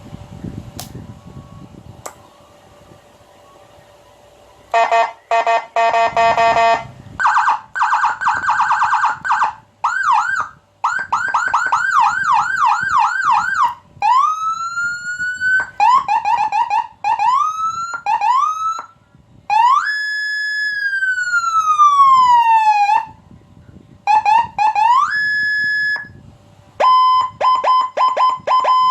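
Whelen 100-watt electronic siren (Type WP001) cycling through its tones, starting about five seconds in: fast pulsing tones, quick repeated up-and-down sweeps, rising sweeps, one long falling sweep, then rapid pulsing.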